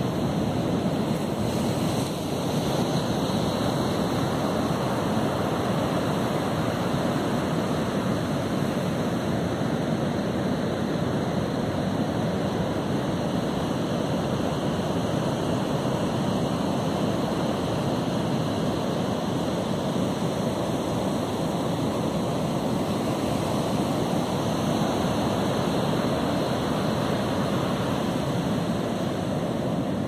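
Ocean surf breaking offshore and washing up a flat sandy beach: a steady rushing noise.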